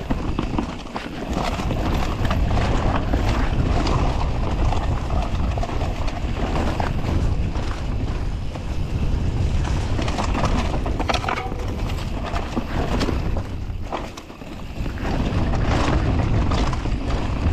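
Wind rumbling on a camera microphone during a mountain-bike ride downhill, with scattered knocks and rattles from the bike over rough ground. The rumble drops briefly about fourteen seconds in, then returns.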